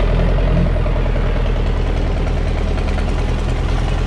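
Vehicle engine running steadily: a loud, even low rumble with a steady hum and no change in speed.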